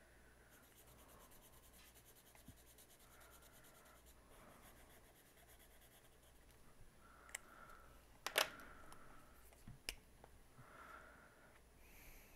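Faint felt-tip marker strokes rubbing on paper as squares on a chart are coloured in, with a few sharp clicks, the loudest about eight seconds in.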